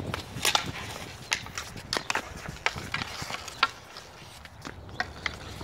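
Boot hockey play on ice: irregular sharp clacks of sticks hitting the ball, the ice and each other, with boots scuffing and stepping on the ice.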